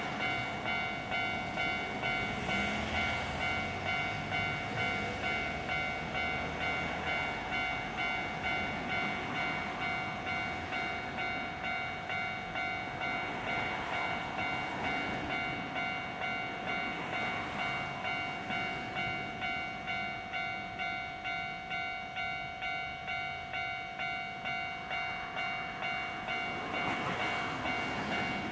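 Japanese railway level crossing warning bell ringing its steady electronic 'kan-kan', an even ding repeating about one and a half times a second.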